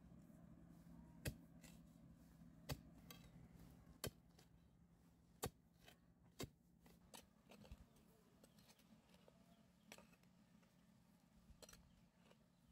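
An iron digging bar striking hard, stony soil to loosen a hole, one sharp strike about every second and a half. The strikes give way to fainter scattered taps and scrapes after about six seconds.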